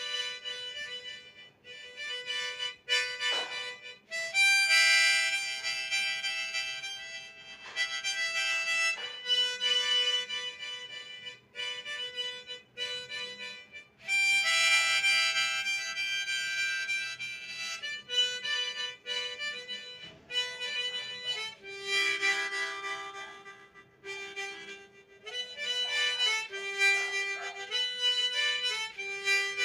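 Golden Cup harmonica in the key of E playing a tune: chords and melody notes held in phrases of a few seconds, with brief breaks between phrases.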